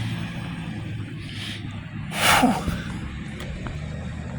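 A steady low hum runs throughout, with one short, sharp breath about two seconds in.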